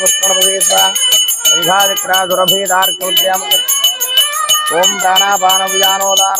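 A metal bell rung rapidly and steadily, several strikes a second, over devotional music: a gliding melody above a steady drone.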